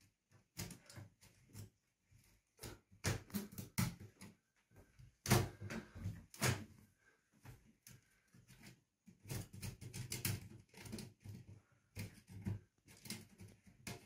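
Clear plastic window vent being turned and pressed into its hole in a glass pane: irregular plastic clicks, knocks and scraping, loudest around the middle.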